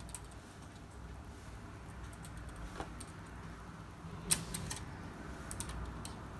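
Small plastic parts of a Strandbeest model kit clicking and tapping as they are handled and fitted together: a few light, scattered clicks, the sharpest about four seconds in, over a low steady room hum.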